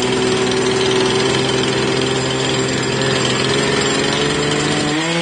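A motor runs steadily with an even hum. Near the end it briefly rises in pitch, then begins to wind down.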